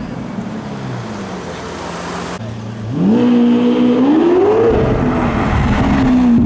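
Lamborghini Aventador's V12 engine running with a low steady note, then about three seconds in it revs up sharply and louder. The revs hold briefly, climb higher, then fall away.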